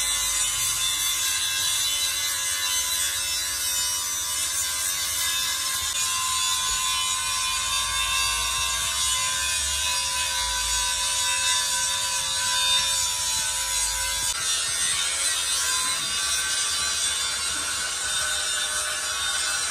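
Electric angle grinder with a thin disc cutting into the steel tube of a truck's rear axle housing: a steady motor whine over a dense grinding hiss. About 14 seconds in the sound changes abruptly as the grinder moves to grinding down a welded seam on the axle tube.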